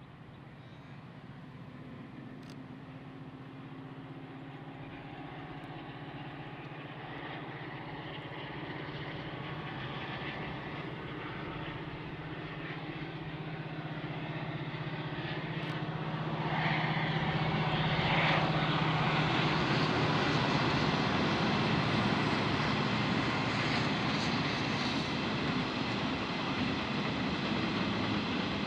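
G class diesel-electric locomotive (EMD two-stroke, 16-cylinder engine) running with a steady drone and growing steadily louder as it approaches, at its loudest about two-thirds of the way in and holding there.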